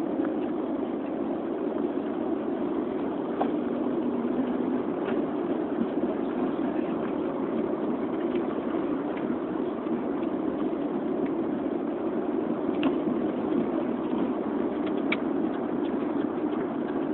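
Steady vehicle engine and cabin rumble, with a few faint clicks.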